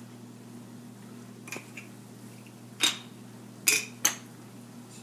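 Hard plastic game pieces clicking and clacking as they are handled and set onto the tower: a couple of light taps, then three sharp clacks in the second half.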